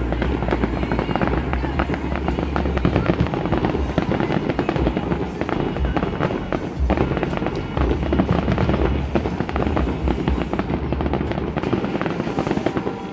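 Fireworks display: a dense, continuous barrage of crackling and popping, over the low booms of aerial shells bursting.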